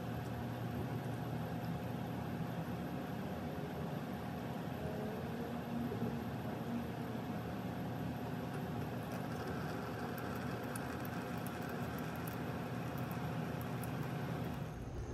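Hot engine oil draining in a steady stream from the sump's drain-plug hole into a catch pan, under a steady low mechanical hum.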